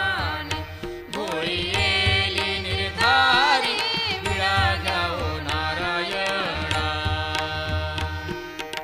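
Marathi devotional bhajan: a voice singing an abhang with gliding, ornamented pitch over instrumental accompaniment and a drum.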